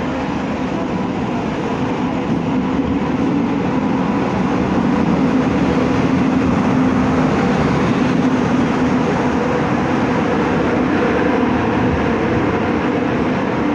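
WAP-7 electric locomotive and its passenger coaches running through past the platform without stopping: a loud, steady rush of wheels and rail with a steady hum, building over the first few seconds as the locomotive draws level and then holding as the coaches pass.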